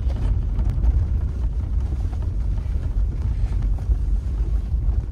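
Cabin noise of a vehicle driving on a snowy track: a loud, steady low rumble of engine and tyres, with a few small knocks and rattles from the rough road.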